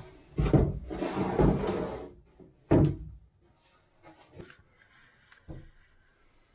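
Handling knocks and bumps while moving about in a fibreglass boat hull at an engine-bay hatch: a knock about half a second in, a rustling scrape for about a second, a sharp knock just under three seconds in, then a few faint clicks.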